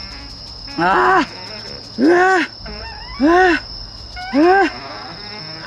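Crickets chirring steadily in the background, with four short calls about a second apart, each rising then falling in pitch.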